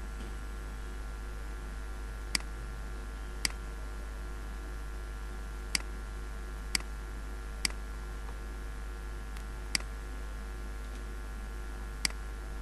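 Computer mouse clicking: seven single, sharp clicks spaced about one to two seconds apart, over a steady low electrical hum.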